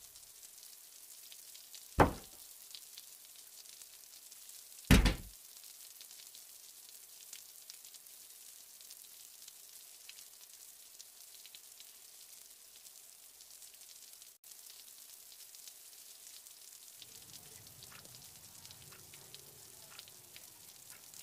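Steady faint hiss of rain, broken twice by loud sudden thuds, about two seconds in and again about five seconds in, each dying away quickly. A faint low rumble comes in near the end.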